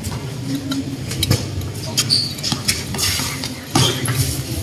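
Short, high sneaker squeaks on a court floor among scattered sharp knocks and thuds, over a steady low background rumble.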